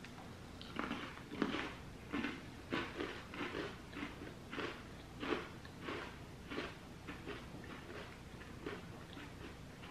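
Chewing a crunchy chocolate sandwich cookie: a steady run of crisp crunches, about two a second, growing fainter toward the end.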